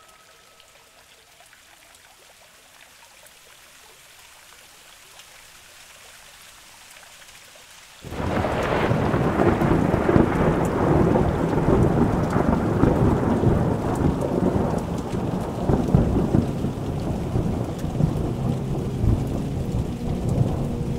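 Heavy rain with deep thunder rumble, starting suddenly about eight seconds in after a few seconds of quiet.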